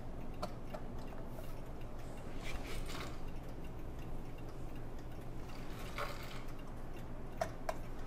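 Faint, irregular small clicks and taps of metal parts being handled on a brass clock movement plate as a nut is fitted to hold the plates together, over a low steady hum.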